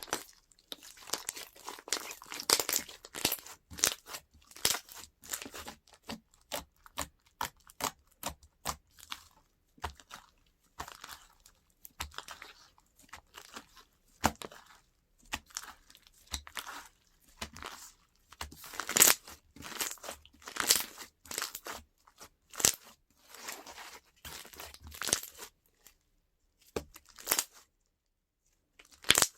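Slime being squeezed, stretched and pressed by hand, giving irregular clusters of crisp crackles, pops and tearing sounds.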